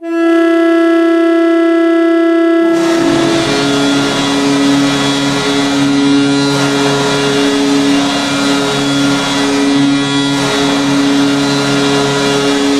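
Wolo 871 horn blowing as a hockey goal horn, signalling a goal. One steady, rich tone sounds for about three seconds, then it carries on at a lower, fuller pitch with a noisy wash underneath.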